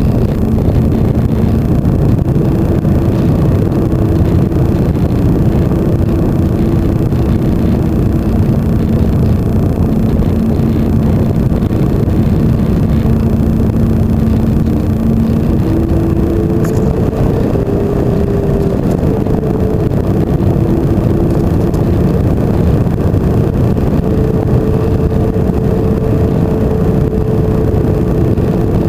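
Electric motor and propeller of an FPV flying-wing model in flight: a steady hum over heavy rushing wind noise. The hum's pitch changes with throttle, stepping higher about halfway through and wavering between two levels after that.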